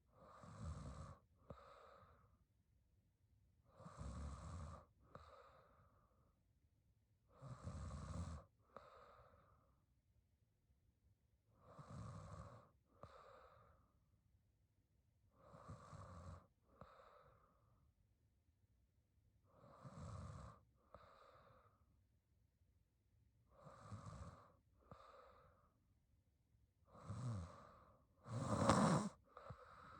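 A young woman snoring in her sleep, with slow, even breaths about every four seconds. Each breath is a longer snore with a low rattle, then a shorter, softer part. The snore near the end is the loudest.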